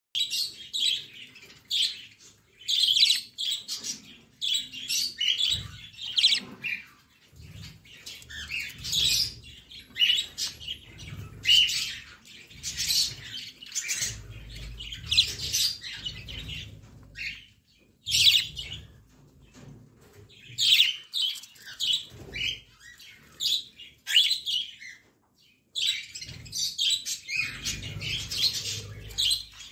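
A flock of budgerigars chirping and chattering in quick, short calls while they eat seed from a bowl. Low rustling and bumping comes in patches between the calls.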